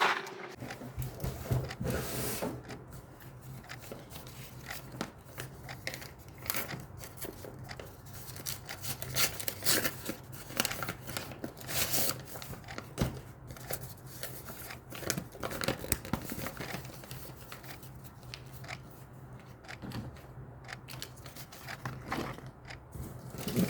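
A cardboard and plastic package being opened by hand: irregular tearing, cutting and crinkling of the packaging, made up of many short rustles and clicks, over a faint steady low hum.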